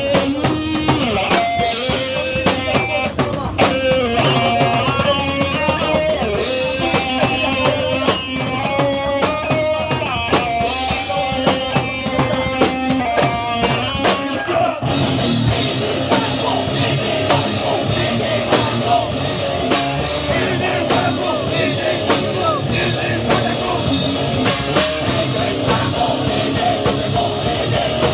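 Hardcore punk band playing live: electric guitars, bass and drum kit. About halfway through, the music changes from a riff with clear melodic lines to a denser, noisier section.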